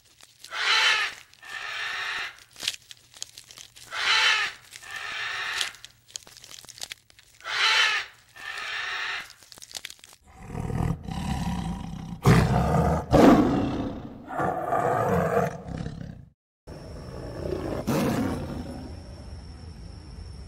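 Animal calls in several edited clips: three loud calls about three seconds apart, each followed by a softer one, then a cut to a louder, deeper run of calls, and a last clip with a faint steady high tone under it.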